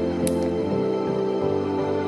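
Instrumental background music, a steady run of held notes.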